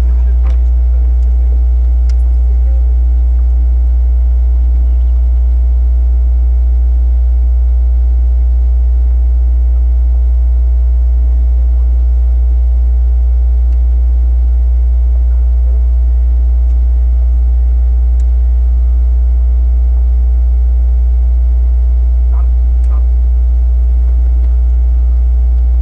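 Loud, steady low electrical hum with a stack of even overtones, unchanging in pitch and level.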